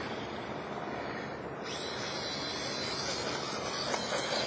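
Megatech Megapro 1/18-scale RC truck's motor and drivetrain whirring as it drives in sand, a high, hissy whir that comes in suddenly about two seconds in, with a single click near the end.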